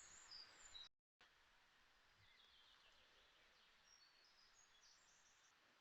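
Near silence: faint outdoor ambience with a few soft, high, short bird chirps after a brief cut-out about a second in.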